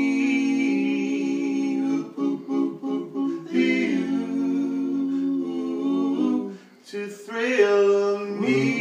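Men's voices singing a cappella in harmony, holding long wordless chords. The singing breaks off briefly near the end, then comes back in.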